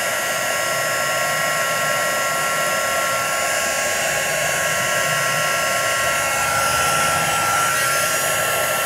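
Handheld craft heat tool (embossing heat gun) running steadily, an even rush of blown air with a steady whine, blowing hot air over the wet watercolour paper to dry it.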